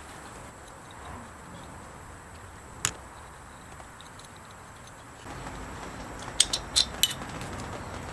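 Small metal parts clinking against each other and a hard surface: one sharp click about three seconds in, then a quick run of four clinks near the end, over a low steady hiss.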